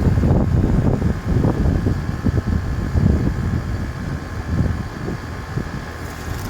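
2018 Goodman 3.5-ton heat pump outdoor unit running in cool mode, with the steady hum of its compressor and condenser fan and a faint steady whine. An uneven low rumble of wind on the microphone lies over it and eases off toward the end.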